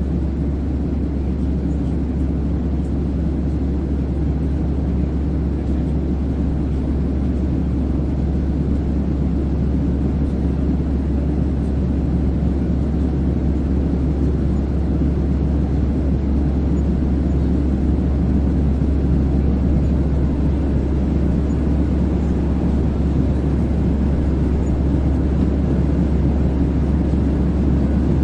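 Airplane in flight: a steady low rumble of engine and airflow noise that barely changes.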